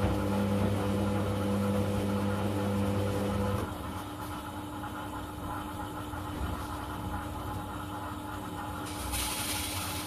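Candy CS1292D3 front-loading washing machine in a rinse: the drum motor hums steadily as the drum turns the wet laundry, then stops about three and a half seconds in, leaving a quieter background with a faint steady tone. A brief hiss comes near the end.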